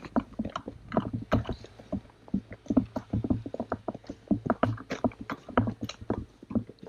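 Footsteps crunching through deep snow, a quick, uneven series of steps.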